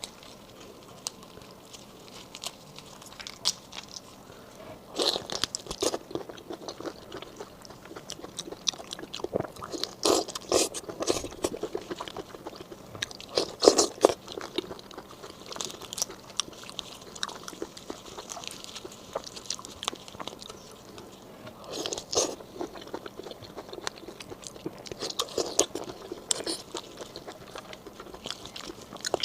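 Close-miked biting and chewing of raw marinated black tiger prawns, in bouts of crunching and wet mouth noises a few seconds apart.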